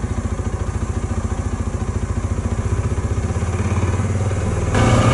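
Engine of a side-by-side utility vehicle idling with an even, fast low pulse. It builds slightly after about three seconds and then turns suddenly louder just before the end.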